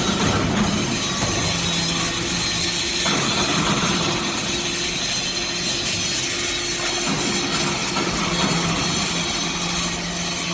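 Hydraulic scrap metal baler running: steady industrial machine noise with a low hum that changes pitch a few times.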